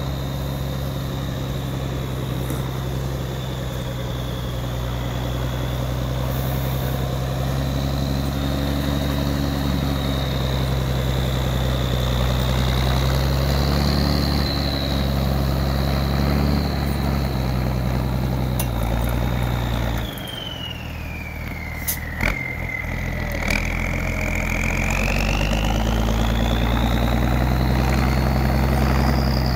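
Military 5-ton 6x6 truck's diesel engine running under load while plowing snow, with a high whine over the engine note. About two-thirds of the way through the revs drop, the whine falls in pitch and a couple of short knocks sound, then the engine pulls back up and the whine rises again.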